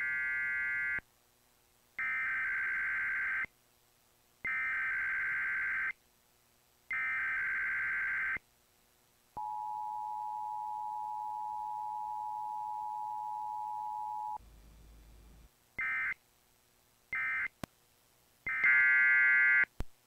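Emergency Alert System test tones relayed from KDKA-FM: four screechy bursts of SAME digital header data, each about a second long, then the steady two-tone attention signal for about five seconds, then more short data bursts near the end.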